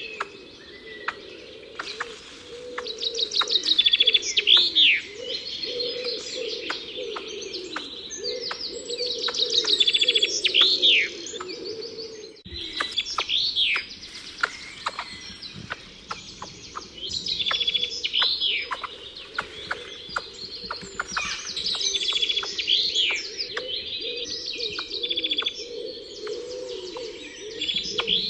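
A chorus of wild songbirds chirping and singing, with rapid trills and quick swooping calls overlapping throughout, over a lower steady warbling. The sound drops out for an instant about halfway through.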